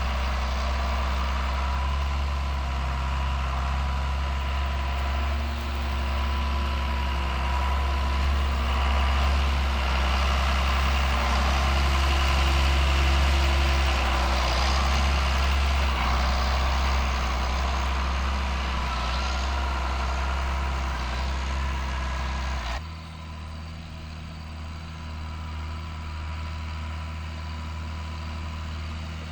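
John Deere 7610 tractor's diesel engine running steadily, with a deep low hum; near the end the sound drops suddenly to a quieter, lower engine sound.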